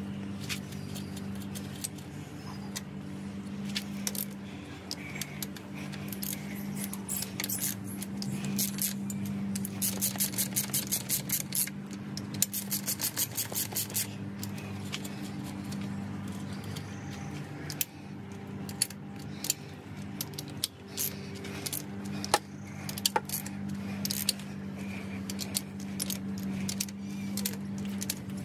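Hand ratchet wrench clicking as nuts are run down on the studs holding the cylinder liner bank, with two quick runs of ratchet clicks in the middle and scattered metallic clicks and taps. A steady low hum continues underneath.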